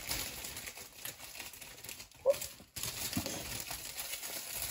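Plastic oven bag crinkling as it is handled and worked open, with one short, louder sound about halfway through.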